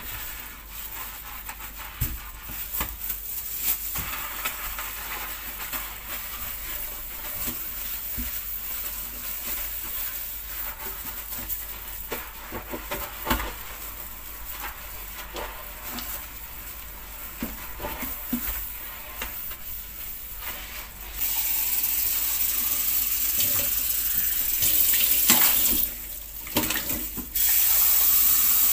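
Water running from a sink tap, turned on about two-thirds of the way in, briefly off, then on again near the end; before that, scattered light clicks and knocks of things being handled at the sink.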